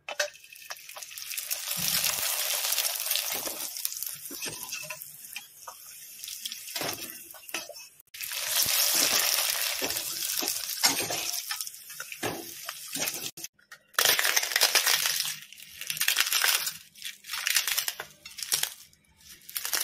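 Broken-wheat (dalia) papad frying in hot oil in a steel kadhai: steady hissing sizzle in several stretches, broken by brief drop-outs. Near the end it turns into short, choppy crackling bursts.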